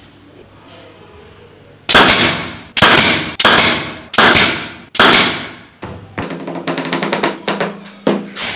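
Pneumatic brad nailer firing 3 cm brads into a wooden bed-frame piece: five sharp shots about two-thirds of a second apart, each with a hiss of exhaust air dying away. Softer rapid clattering follows near the end.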